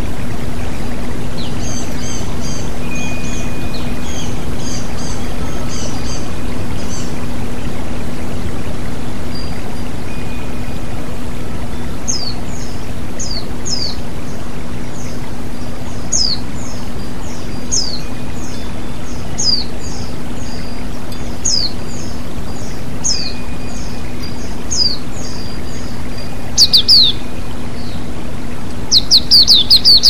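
Forest stream rushing steadily over rocks, with white-eyes (pleci) singing above it. A few scattered chirps come in the first seconds, then from about twelve seconds in a run of quick, downward-sliding whistled notes about once a second. These turn louder and faster near the end.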